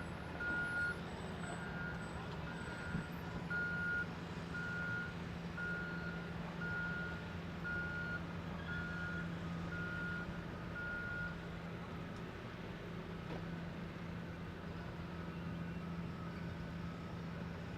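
Backup alarm on heavy construction machinery beeping about once a second over a steady engine hum. The beeping stops about eleven seconds in, and fainter beeps from another backup alarm come in near the end.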